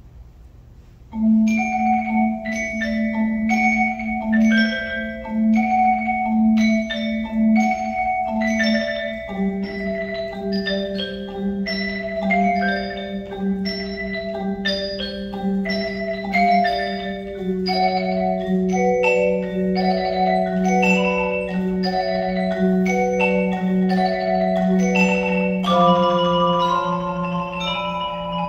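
Percussion ensemble on mallet instruments starts playing about a second in: a running pattern of quickly repeated struck notes over long held low notes that step down in pitch a few times.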